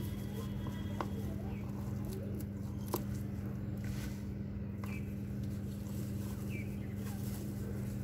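Scissors snipping leafy dwarf copperleaf stems: a few sharp clicks, one about a second in and a louder one about three seconds in, over a steady low hum. Faint short chirps come now and then.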